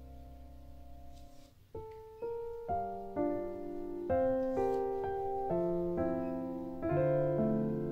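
Background piano music: a held chord dies away, then a new gentle piano phrase starts about two seconds in, with notes entering one after another.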